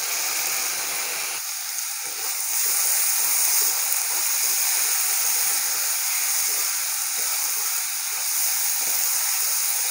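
Chopped tomato with onion and green chillies frying in hot ghee in a stainless steel pan, stirred with a wooden spatula: a steady sizzle that grows a little stronger after about a second and a half.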